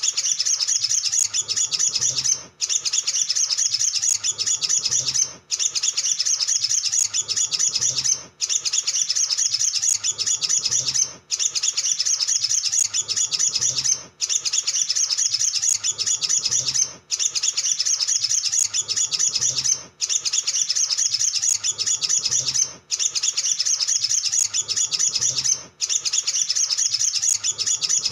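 Olive-backed sunbird song: a fast, high, chattering twitter sung in near-identical phrases that repeat about every three seconds, each cut off by a brief pause, like a looped lure recording.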